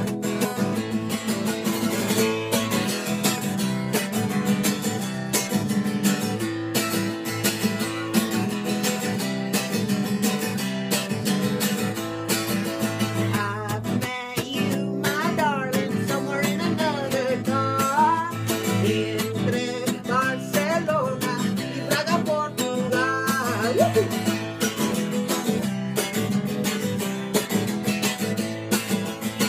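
Music led by strummed acoustic guitar, with a wavering, bending melody line over it for several seconds around the middle.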